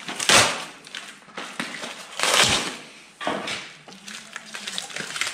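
Rustling and rubbing of a towel wiping a snowmobile's carbide runner (ski wear bar) by hand, in three swells with faint ticks of the metal bar being handled.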